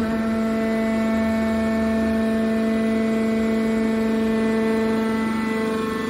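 Hydraulic metal baler's power unit running: the electric motor and hydraulic pump give a steady, pitched hum.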